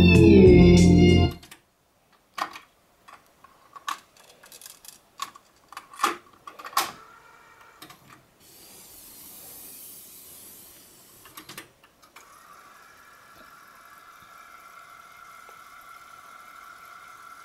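Music playing from a Nakamichi CR-7A cassette deck stops abruptly about a second in, followed by a scatter of clicks and knocks and a brief hiss. In the second half comes a faint steady whir with a held high tone: the deck's tape transport winding the tape back.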